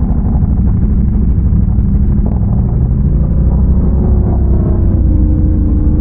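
Big-bore Can-Am Renegade ATV engine running steadily under way, its pitch easing down slowly over the last couple of seconds, with heavy low-pitched noise underneath.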